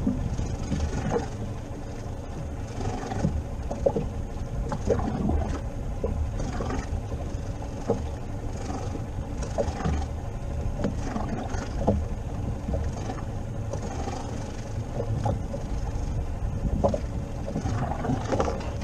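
Sea and wind noise around a rigid inflatable boat drifting on open water: a steady low rumble, broken every second or few by short knocks and clicks.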